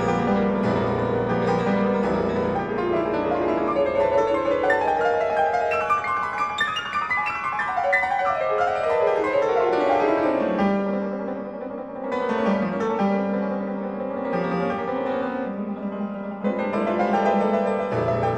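Solo piano playing a dense, many-voiced passage. About eight seconds in, a fast run falls from the high register into a repeated figure in the middle of the keyboard. The low bass drops out there and comes back just before the end.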